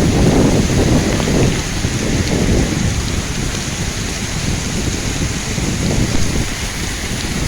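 Heavy rain falling steadily, with a high hiss and strong wind gusting on the microphone. The low wind rumble is heaviest in the first second and a half, then eases.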